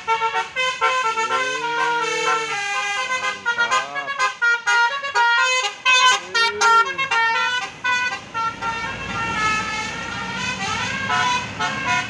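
A telolet basuri musical horn on a tour bus, tooting a quick melody of short notes, some of them sliding up and down in pitch. In the last few seconds the notes run longer and closer together.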